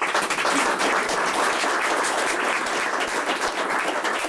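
Audience applauding, many hands clapping steadily at once.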